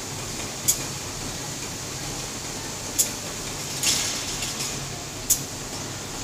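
Automatic folder gluer for corrugated boxes running steadily, with a sharp click about every two and a quarter seconds and a short hiss near the middle.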